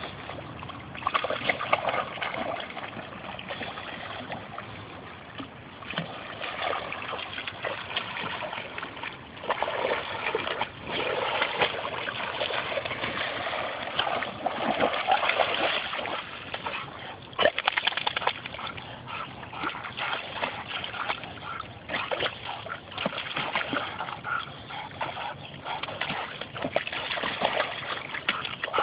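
A dog splashing and sloshing irregularly in shallow pond water as it wades and thrashes while grabbing and dragging a snapping turtle.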